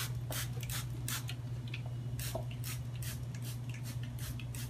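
Trigger spray bottle of sanitizer being pumped over a tabletop: a quick run of short hissing sprays, about two or three a second. A steady low hum runs underneath.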